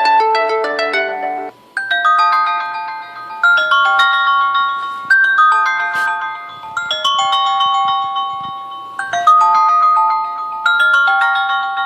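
LG G4 stock ringtones playing on the phone: one ringtone ends about a second and a half in, and after a short break another starts, a melody of struck notes that each ring and fade.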